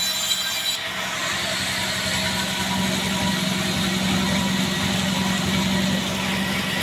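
Band sawmill running steadily, with a constant low hum from its drive over a rushing noise; a faint high squeal stops about a second in.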